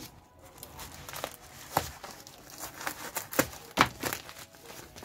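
Plastic packaging bags crinkling and rustling as they are handled and pulled open by hand, with a few sharp, irregular crackles.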